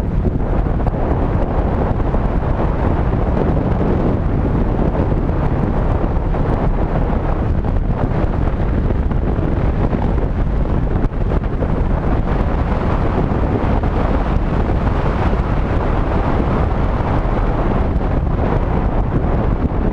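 Steady wind rumble on a GoPro's microphone as the vehicle it rides on drives along a road, mixed with the vehicle's road noise.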